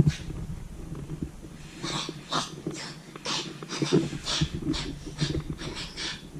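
Quick, noisy panting, about two breaths a second, that starts about two seconds in. A sharp click comes at the very start and is the loudest sound.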